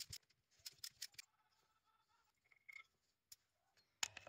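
Faint, irregular clicks and light metallic taps from hands and tools working among the engine-bay hoses and fittings, then near silence; near the end a few sharper clicks start as a socket wrench goes onto a bolt.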